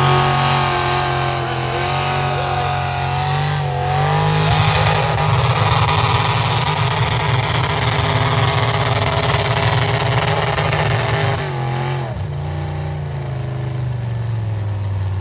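Truck engine running hard under heavy load while pulling a tractor-pull sled, held at high revs, then backing off and falling in pitch about twelve seconds in as the pull ends.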